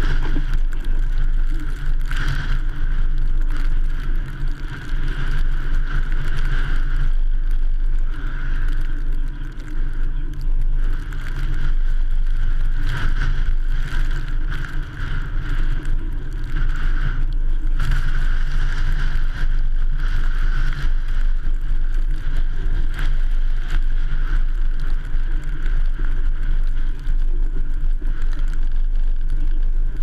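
Ford F-150 pickup driving on snow-covered streets, heard from a camera mounted on its hood: a steady low rumble of engine and road noise, with occasional short knocks.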